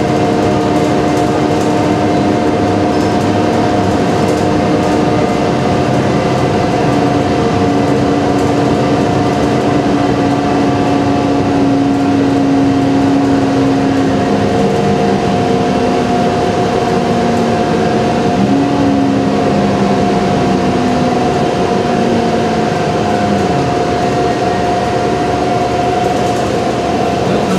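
Inside a moving transit bus: steady engine and road noise with a droning whine that shifts in pitch and falls near the end.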